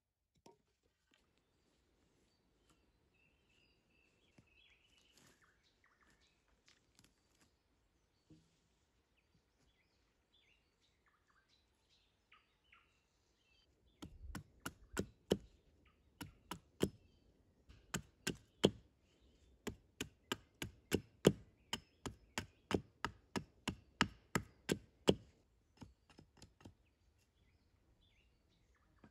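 Hatchet chopping into a weathered dead log, a quick run of sharp wooden strikes about three a second that starts about halfway through and stops a few seconds before the end. Before it there are only faint scattered ticks and chirps.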